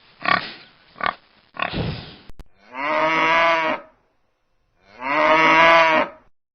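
A pig grunting a few times, then a cow mooing twice, each moo a long, even call of about a second and a half.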